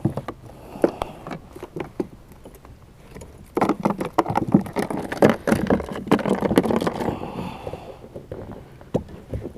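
Irregular knocks, clicks and rattles of gear being handled on a fishing kayak, busiest for a few seconds in the middle.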